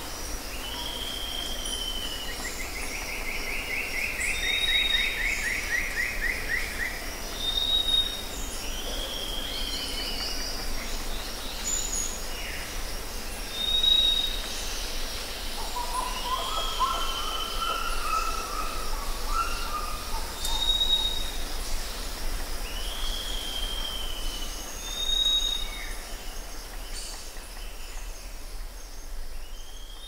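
Several birds calling and singing over a steady background hiss. A short high whistle repeats every few seconds among downslurred calls, with a fast trill a couple of seconds in and a lower warbling phrase about halfway through.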